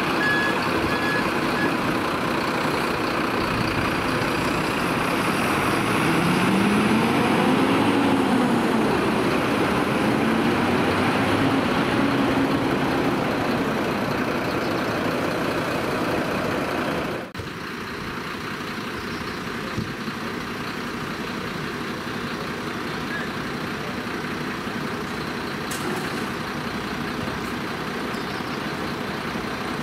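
Heavy fire truck engine running, with a reversing beeper sounding at the start. The engine twice rises and falls in pitch in the middle, then the sound drops abruptly to a quieter, steady engine running.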